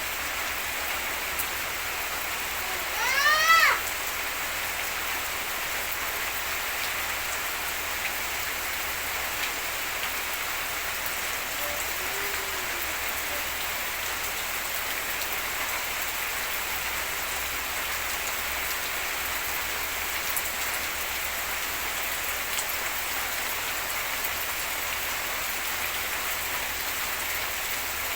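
Steady rain falling, an even hiss of drops. About three seconds in, a short pitched call sweeps upward and stands out above the rain.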